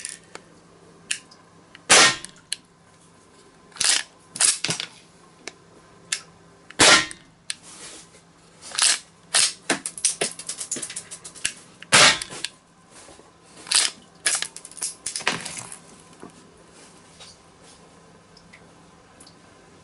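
Grand Power K100 Flobert pistol's slide and action being worked by hand: a scattered series of sharp metallic clicks and clacks. The loudest come about two, seven and twelve seconds in, with a quick run of clicks between about ten and eleven seconds, then only faint ticks near the end.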